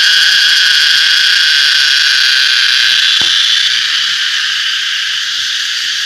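Cicada calling at close range: a loud, steady buzzing drone that eases off slightly in the second half.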